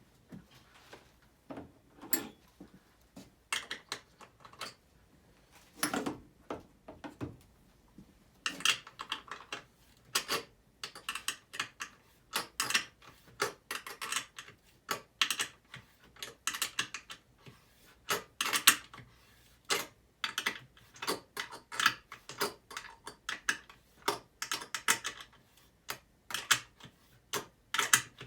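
Ratchet wrench clicking in short, irregular bursts as nuts are tightened down onto bolts.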